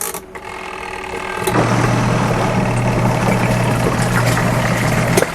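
Small portable electric washing machine starting its wash cycle: the wash motor kicks in about a second and a half in and hums steadily as the pulsator churns the laundry water, cutting out briefly near the end.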